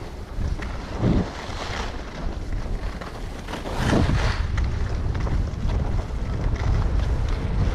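Wind buffeting the microphone of a skier's camera during a downhill run, with skis hissing and scraping over groomed snow in turns. The scrapes surge about a second in and again around four seconds in, and the wind is louder from then on.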